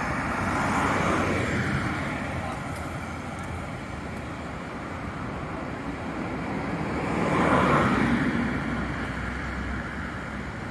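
Road traffic: a steady rush of cars on a city street, swelling as one vehicle passes about a second in and a louder one passes near the eight-second mark.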